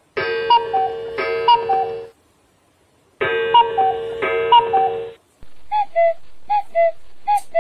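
Smartphone sounding electronic alert tones: two sustained chimes, each with a falling two-note melody, separated by a short pause. From about five seconds in comes a quicker string of short falling two-note beeps over a steady hum.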